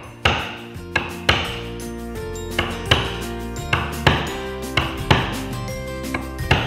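Caulking mallet striking a caulking iron to drive cotton into the seams of a wooden boat's hull: sharp knocks, often in pairs, about once or twice a second. Background music with sustained tones plays underneath.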